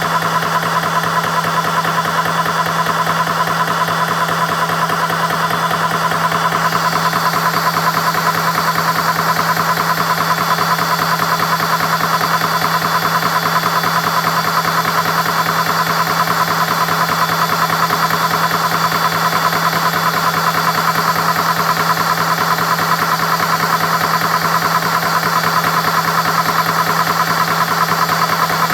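CS6 Pro PCP high-pressure air compressor running steadily, pumping air into an air rifle's tank, with a constant hum and a fast pulsing beat. About six seconds in, a higher hiss grows louder.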